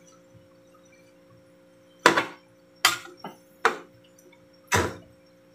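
Metal spatula scraping and knocking against a large stainless-steel pan while cooked rice noodles are tossed: five short strokes in the second half, four of them loud, over a faint steady hum.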